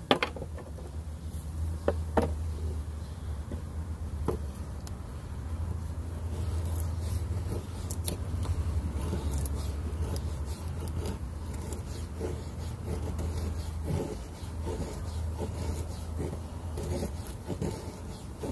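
Small folding saw blade of a multitool cutting a thin wooden stick by hand, with repeated rasping, scraping strokes of wood. A few sharp knocks come in the first four seconds, over a steady low rumble.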